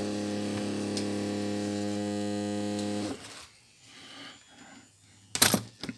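Mobile phone's vibration motor buzzing steadily, then cutting off about three seconds in, with a sharp knock near the end. The phone starts vibrating as soon as its battery goes in, which the owner takes for a short circuit somewhere in it.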